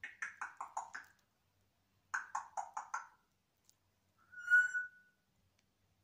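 African grey parrot calling. It gives two quick runs of about six short notes, mostly falling in pitch, then about four seconds in a single clear whistle, the loudest sound.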